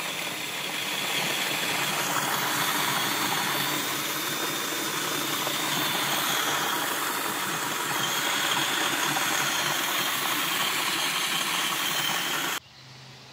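Drill-driven grain mill crushing malt: a steady motor whine with a grinding rattle, cutting off suddenly near the end.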